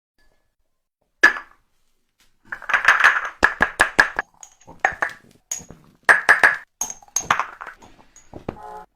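Cupping jars clinking and popping with short ringing pings: one hit about a second in, then a quick run of clicks and clinks for several seconds.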